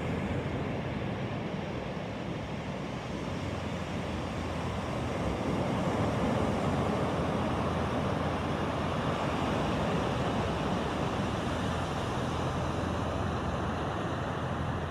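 Ocean surf: waves breaking and washing up the beach in a steady rush that swells a little about five seconds in.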